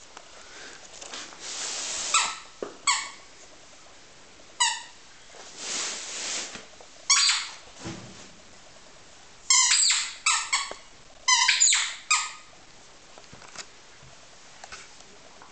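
Rubber squeaky toy being squeezed as a dog chews on it: single high squeaks a few seconds apart, then a quick run of six or seven squeaks about ten seconds in. Two longer hissing sounds come in between the first squeaks.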